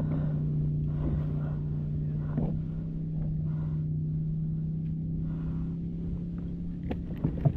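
Fishing boat's motor running steadily at trolling speed, a constant low hum that cuts off about 7 seconds in, followed by a few light knocks.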